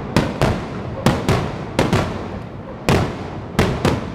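Aerial fireworks bursting overhead in quick succession: about nine sharp bangs at irregular intervals, each trailing off in a brief echo.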